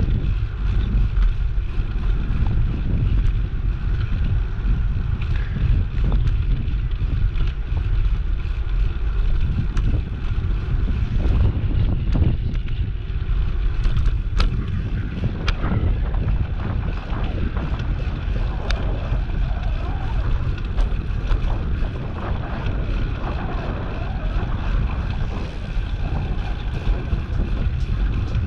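Wind buffeting the microphone of a moving bicycle rider, a steady low rumble with no pause. Faint voices of passers-by come through in the second half.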